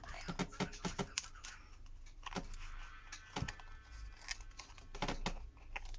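A plastic card being slid around the frame of a Samsung Galaxy A21s to pry off its glued back cover, giving irregular small clicks and scrapes, a quick run of them in the first second and a half and then a few spread apart.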